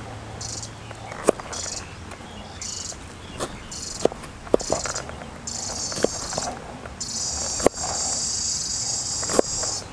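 A large knife chopping young jackfruit on a wooden chopping board: about eight sharp chops at irregular intervals. Insects buzz high in the background in short pulses, turning continuous about seven seconds in.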